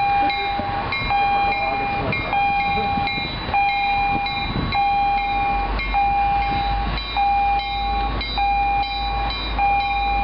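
A bell ringing steadily, a bit less than once a second, as a diesel commuter train locomotive approaches. The locomotive's low rumble grows from about halfway through.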